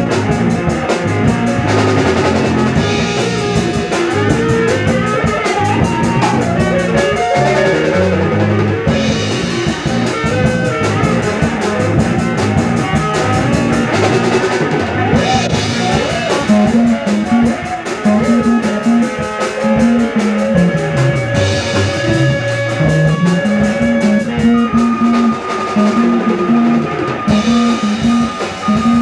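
A rock band playing electric guitar, bass and a drum kit. A repeating low riff takes over about halfway through.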